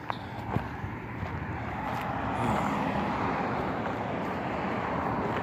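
A car passing on a nearby road: tyre and engine noise that grows steadily louder, with a few sharp clicks in the first couple of seconds.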